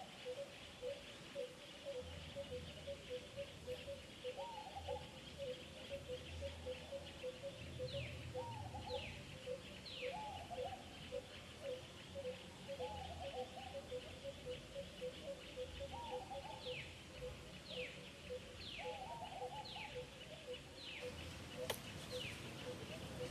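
Woodland ambience of several birds calling together. A steady pulsing call repeats about three times a second, lower arched calls come every couple of seconds, and runs of short downward whistles sound twice, over a steady high insect hum.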